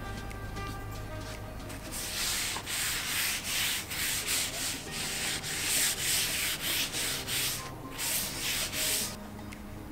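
Paper towel rubbed briskly back and forth over an oiled wooden chopping board, wiping off surplus mineral oil, in quick swishing strokes about two a second. The rubbing starts about two seconds in and stops about a second before the end.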